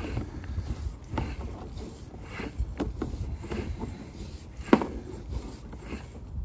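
Scattered light knocks and rubbing over a low rumble, with one sharp, louder knock about three-quarters of the way through.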